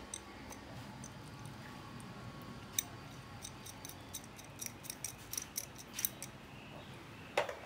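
Faint, scattered metallic clicks and ticks from an adjustable wrench being handled while its jaw is opened for measuring, with a quick cluster of clicks a little past the middle.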